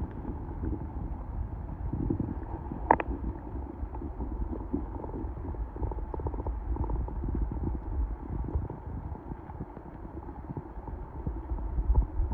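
Muffled underwater rush of river current, heard through a submerged camera housing: a steady low rumble with scattered small clicks and knocks, one sharper click about three seconds in and a louder knock at the very end.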